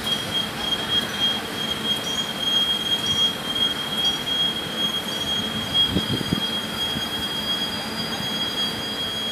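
Passenger coaches of an Indian Railways mail train rolling past and away, the wheels giving a steady high-pitched squeal on the rails over the rumble of the train. A few low clunks come about six seconds in.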